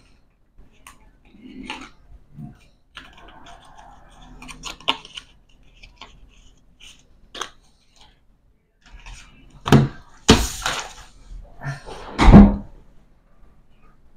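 Hands handling a deck of playing cards and its cardboard tuck box: small clicks, rubs and rustles. Near the end come several louder knocks and scrapes as the box and a card are set down on the table.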